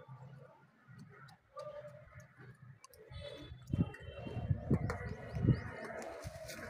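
Small bird chirping in the background, with a few dull low thumps between about four and five and a half seconds in.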